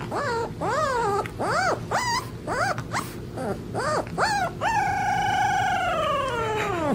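Husky puppy giving a run of short yelping whines that rise and fall in pitch, then, a little past the middle, one long howl that slides down in pitch as it ends.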